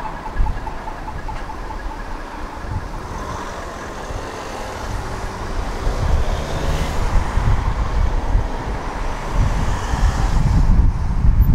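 Tram running along its track, its low rumble growing louder from about five seconds in as it gathers speed. A rapid beeping is heard over it for the first second or so.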